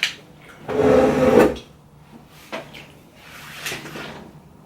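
Close-miked eating and food-handling sounds from a seafood meal: a loud rough noise lasting under a second about a second in, then a sharp click and a softer rustle later on.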